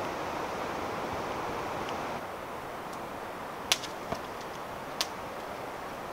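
Campfire of split kindling on seasoned oak logs burning with a steady rushing hiss, which drops a little about two seconds in, and three sharp crackles in the second half.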